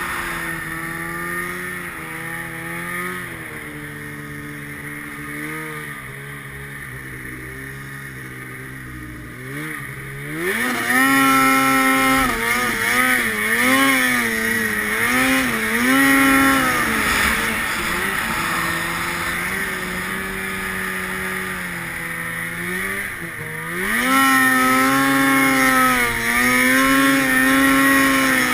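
Arctic Cat snowmobile engine running while riding. For about the first ten seconds the revs sink slowly and the engine is quieter. Then the throttle opens and the pitch climbs sharply and gets louder, rising and falling with the throttle, with a short dip and another climb near the end.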